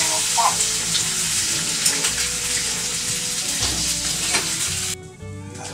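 Steady, loud hiss, even across high and low pitches, that cuts off abruptly about five seconds in.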